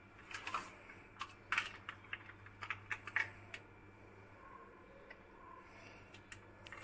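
A quick run of light, irregular clicks and taps lasting about three and a half seconds, then only a faint steady hum.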